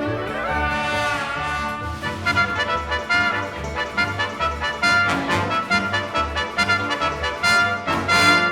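Background music with brass, trumpet and trombone over a steady bass beat, with a sliding brass phrase about a second in.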